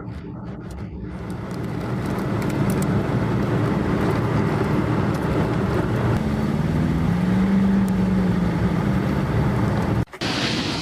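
A vehicle engine running and drawing closer, growing louder over the first two seconds, its note rising for a moment in the later part before the sound cuts off suddenly near the end.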